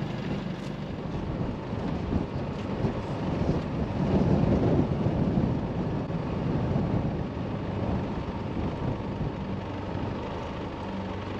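A four-wheel-drive vehicle's engine running steadily, with wind noise on the microphone.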